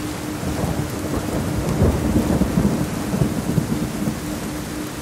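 Steady rain with a roll of thunder that swells about half a second in, is loudest around two seconds and fades by about four seconds. Underneath runs a low tone pulsing about four times a second, a theta-rate pulse.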